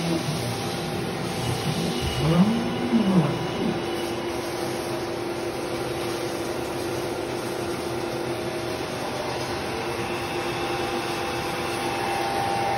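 Steady mechanical whir of the CNC router's machinery running without cutting, with a constant hum under it. A short tone rises and falls about two seconds in.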